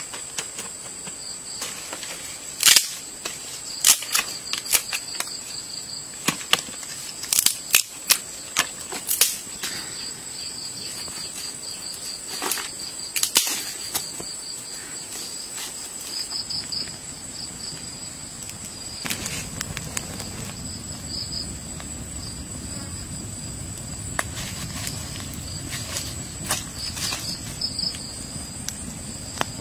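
Steady high chirring of crickets, with a run of sharp cracks and snaps through the first half. From about two-thirds of the way through, a low steady rumble of a burning wood fire joins in.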